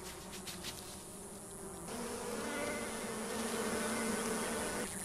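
Bees buzzing in flight: a steady hum that grows louder about two seconds in and stops shortly before the end.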